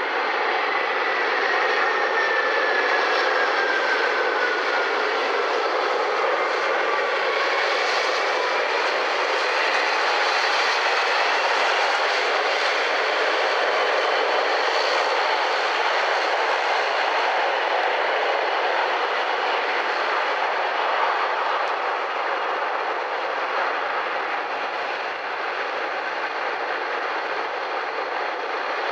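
Jet airliner engines heard close by: a steady rushing noise, with a whine that falls in pitch over the first nine seconds.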